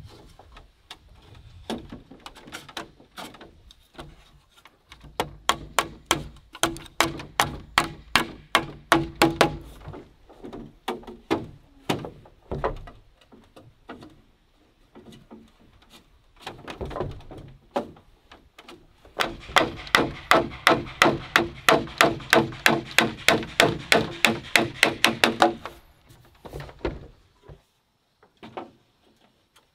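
Knocking on a bamboo house frame as a crossbeam is driven into its joint: two long runs of quick, even strikes, about three to four a second, with a few scattered knocks between and after.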